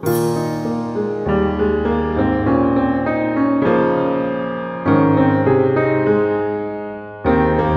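Background piano music: slow chords struck every second or few, each ringing and fading before the next.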